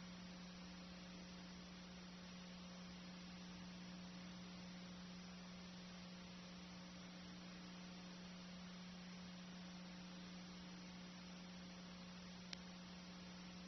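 Near silence: a steady low electrical hum over faint hiss, the background noise of an old analogue video transfer, with one faint click near the end.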